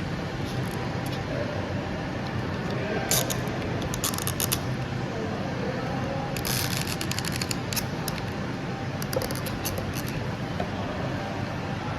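Steady low mechanical hum, with scattered sharp clicks and clinks in short clusters a few seconds apart.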